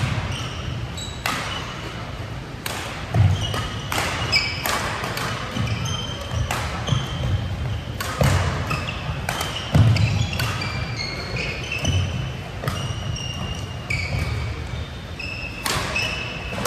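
Badminton doubles rally: rackets hitting the shuttlecock in quick exchanges, with sneakers squeaking and feet thudding on the court floor. The heaviest footfalls come about three seconds in and again near ten seconds.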